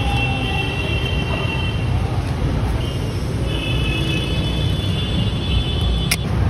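Steady street traffic rumble, with a thin high squeal coming and going above it and a single sharp click about six seconds in.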